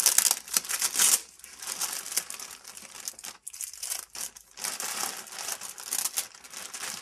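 Clear plastic packaging bag crinkling and rustling as it is gripped and pulled off a new camera bag, loudest in the first second and again near the end, with a quieter stretch in the middle.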